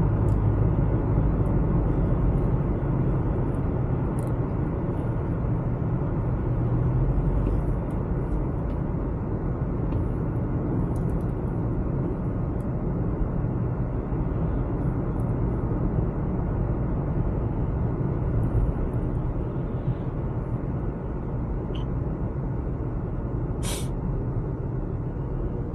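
Steady low rumble of a vehicle on the move, with an engine hum that fades out after about seven seconds. A short sharp hiss comes near the end.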